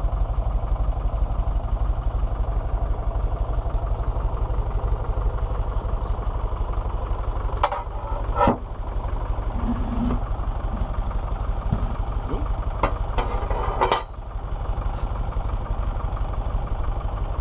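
Fordson Power Major tractor engine idling steadily, with a few sharp knocks about halfway through and again near the end.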